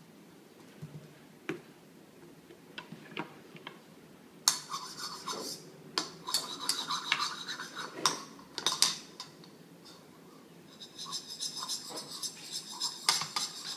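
A utensil clinking and scraping against cookware as a toddler stirs and works at the dish. Sharp clinks start about four seconds in, and a run of quick scraping strokes sets in near the end.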